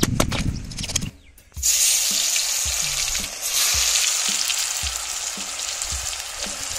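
Battered pomfret fish pieces frying in hot oil: a dense, steady sizzle that starts about a second and a half in, after a brief burst of clicking and a short gap, with soft low knocks recurring beneath it.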